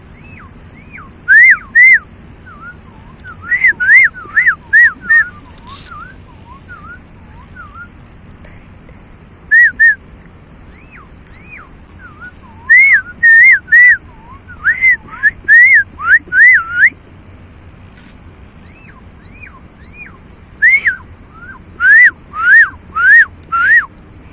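A person whistling bird-call imitations: loud short notes that sweep up to a high peak, in runs of two to five, with fainter curved whistled notes in the gaps between the runs.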